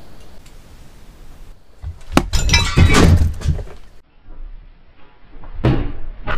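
A crash: something falls and clatters with a glassy, ringing sound for about a second and a half, and a single sharp knock follows about two seconds later.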